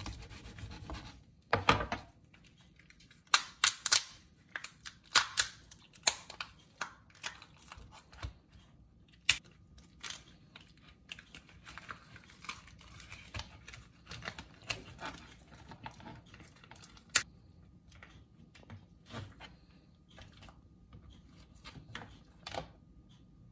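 Raw spiny lobster tail shell cracking and snapping as it is split in half and peeled away from the meat by hand, a run of irregular sharp cracks with softer crackling between them.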